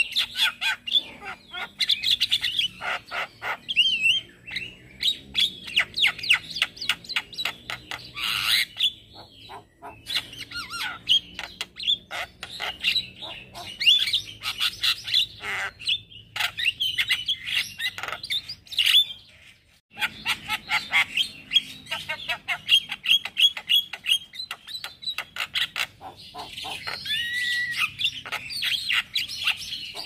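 Male Javan myna (jalak kebo) in full chattering song: a fast, unbroken run of harsh clicks, squawks, chirps and short whistled glides. The song breaks off briefly about ten and twenty seconds in.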